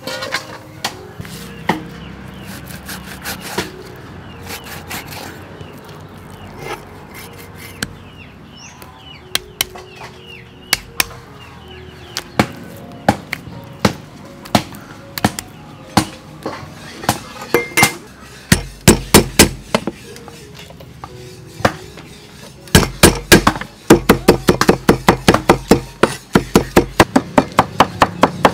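Cleaver chopping on a round wooden chopping board: scattered knocks at first, then from a little past halfway rapid chopping in runs, about four strokes a second, over soft background music.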